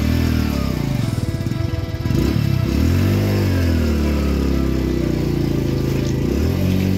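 Motorcycle engine under changing load on a rough off-road track, its revs rising and falling a few times and holding steady through the middle.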